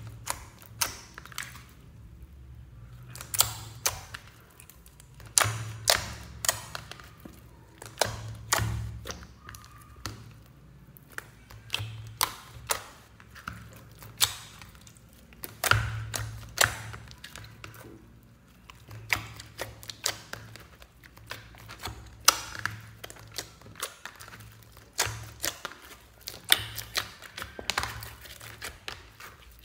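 Hands squishing and folding a large mass of clear slime mixed with clay and foam pieces in a plastic tub: irregular sticky clicks and air-bubble pops, several a second, with soft thuds as the slime is pressed down.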